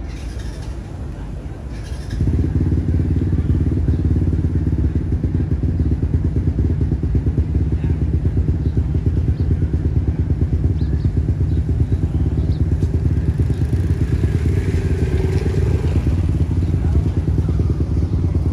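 A motorcycle engine running close by, with a fast, even pulsing. It comes in suddenly and loudly about two seconds in.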